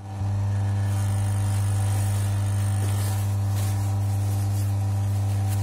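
Steady electrical hum, pitched like mains hum, holding one unchanging tone with its overtones.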